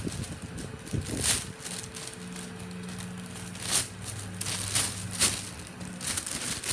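Plastic squishy packaging crinkling in short rustles as it is handled, over a faint steady low hum.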